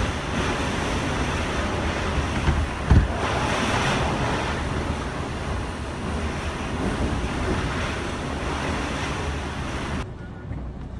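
Typhoon-force wind gusting through trees with a steady rushing noise and rumbling buffeting on the microphone, and a loud low thump about three seconds in. About ten seconds in the wind noise cuts off abruptly to a quieter background.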